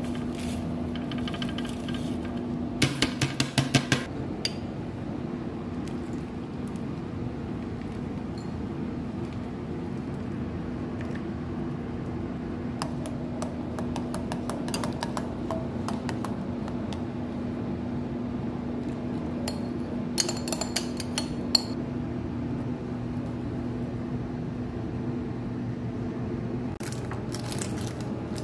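Utensil clinking against a bowl and dish in three short bursts, about three seconds in, past the twenty-second mark and near the end, while a crumbly nut mixture is mixed and pressed down. A steady low hum runs underneath throughout.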